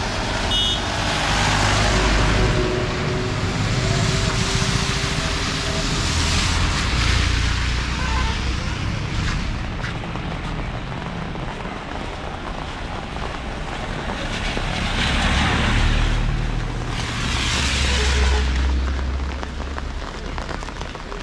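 Vehicles passing on a rain-wet road, their tyres hissing on the wet asphalt over a steady background hiss; several passes swell and fade, the loudest about two, seven, fifteen and eighteen seconds in.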